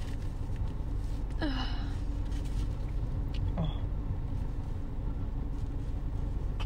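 A woman's short breathy "oh" gasps, falling in pitch, as she works up to a sneeze that does not come yet. Under them runs a steady low rumble.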